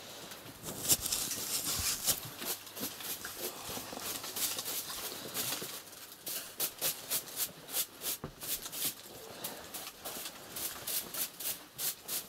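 Irregular clicks, knocks and rustling from someone moving about and handling things close by, coming a few a second for a stretch in the middle.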